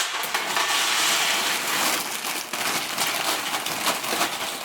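Plastic snack bags crinkling and rustling as they are handled and torn open, a dense crackly rustle that is loudest in the first two seconds or so.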